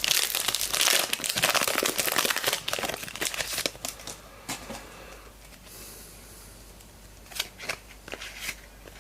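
Foil wrapper of a Select Footy Stars trading card pack crinkling as it is torn open and handled, loudest in the first three and a half seconds. A few light clicks and snaps near the end.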